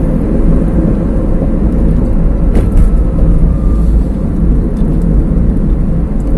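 A car driving along, heard from inside the cabin: a steady low road and engine rumble, with one brief faint tick about two and a half seconds in.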